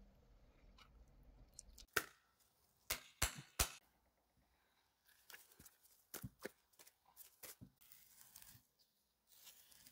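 A few sharp knocks on a wooden cutting board, then a knife slicing through a raw beef short rib plate, a run of short irregular scraping and tearing sounds as the blade works through fat and membrane.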